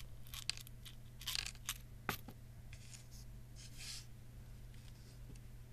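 Small chips of manganese metal tipped out of a small glass vial, clicking and scraping as they drop and slide on paper: a few scattered faint clicks, a sharper one about two seconds in, and a longer scrape near the four-second mark, over a steady low hum.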